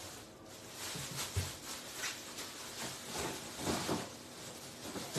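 Frying pan of tomato sauce with freshly added frozen parsley sizzling on the hob, with irregular crackles and pops.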